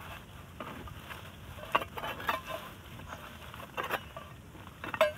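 Rustling and irregular crackles of dry grass, straw and leaves as a small groundcherry plant is pulled up by hand, with a sharp crackle about a second and a half in and the loudest one near the end.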